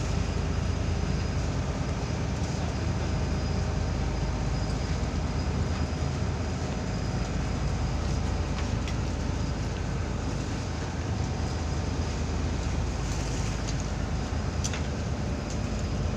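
Boat engine running steadily alongside a barge: a low, even drone, with a few faint knocks near the end.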